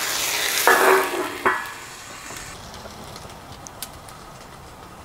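Water sizzling and hissing into steam in a hot cast iron wok with broccoli. A loud burst of sizzle in the first second and a half, settling to a quieter hiss with a few small pops.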